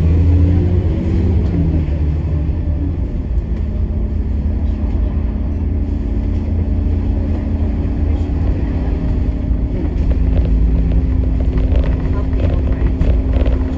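Bus engine and road rumble heard from inside a moving bus: a loud, low, steady drone. The engine note shifts over the first few seconds, then settles into an even hum, with a few light rattles near the end.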